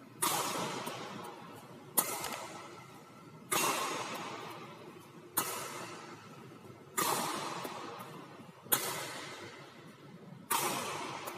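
Badminton racket strikes on a shuttlecock in flick-smash drills: seven sharp smacks, about one every one and a half to two seconds, each ringing on in the echo of a large hall.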